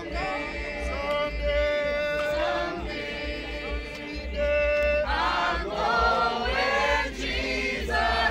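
A group of mourners singing a hymn together without accompaniment, in long held notes, with a steady low rumble underneath.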